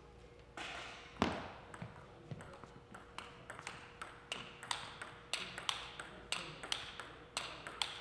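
Table tennis rally: the ball clicks sharply back and forth off the rackets and the table at a quick, even pace, with the loudest hit about a second in.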